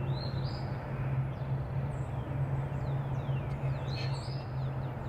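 Small wild birds chirping and calling in quick, repeated down-slurred and rising notes over a steady low hum.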